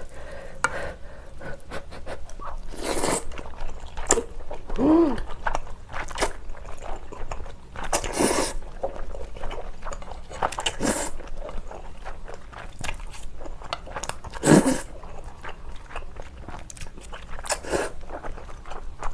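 Close-miked eating: glass noodles from spicy beef soup being slurped and chewed in short bursts, with a few sharp clicks.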